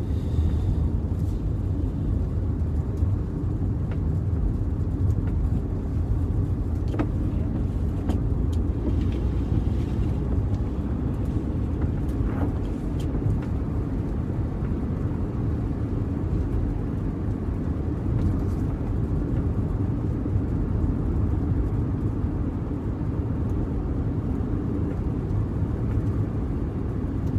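Car driving along a road: steady low engine and road rumble.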